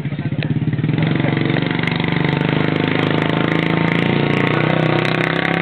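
Motorcycle engine idling steadily close by, growing louder about a second in.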